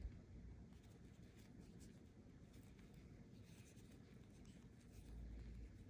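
Near silence with faint, scratchy rustling of yarn being worked over a crochet hook, and a soft bump right at the start.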